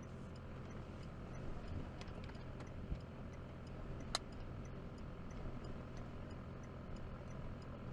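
A car's hazard-light flasher ticking at an even pace over a steady low rumble inside the stopped vehicle. A single sharp click comes about four seconds in.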